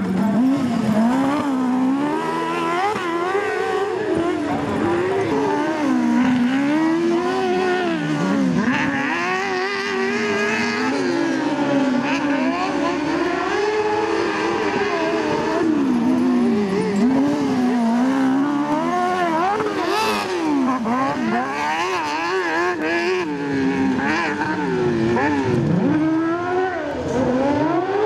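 Off-road racing buggy engine revving hard, its pitch climbing and dropping over and over as the driver accelerates out of and lifts off into the corners of a dirt track.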